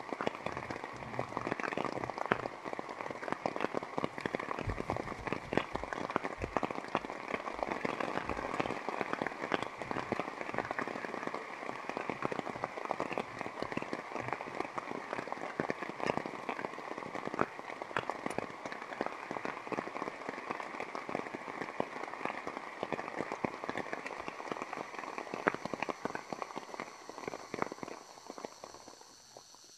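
Steady rain pattering on a tarp shelter, a dense stream of small drop hits that fades out near the end.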